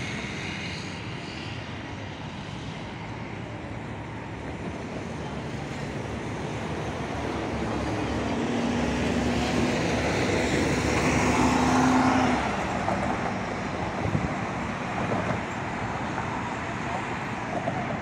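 Road traffic: a steady hum of passing cars and engines, with one vehicle's engine note growing louder over several seconds to a peak about two-thirds of the way through, then falling away.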